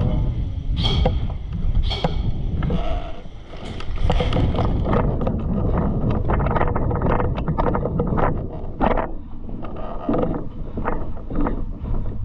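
Low rumble of wind and handling noise on a body-worn camera microphone, with irregular clicks and rustling throughout.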